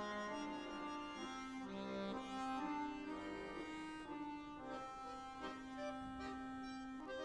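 Bayan (Russian chromatic button accordion) playing a melody of held notes.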